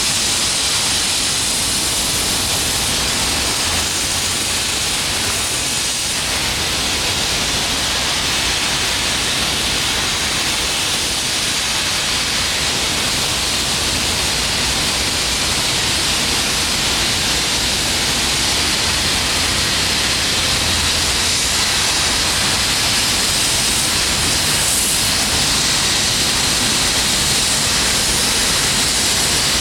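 A steady, even rushing noise with no distinct events, brightest in the upper range.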